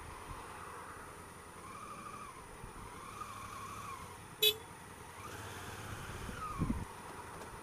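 Honda Africa Twin CRF1000L's parallel-twin engine revving up and easing off three times as the bike filters slowly between cars. There is a single sharp click about halfway through.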